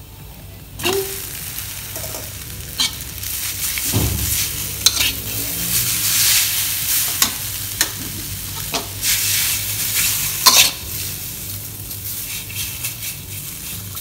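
Boiled, drained ramen noodles go into a wok of hot oil and minced garlic and start sizzling about a second in. They are then stir-fried, with a metal spatula scraping and tapping against the wok in sharp clicks over the frying hiss.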